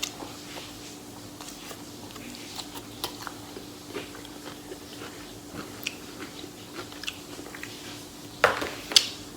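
Close-up chewing of sushi, with small wet mouth clicks scattered through, and two louder sharp sounds about half a second apart near the end. A faint steady hum sits underneath.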